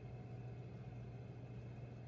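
Quiet room tone with a faint, steady low hum and no distinct events.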